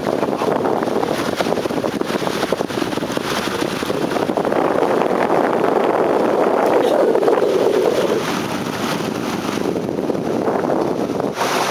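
Steady rushing noise of a small boat under way on a river, with wind buffeting the microphone.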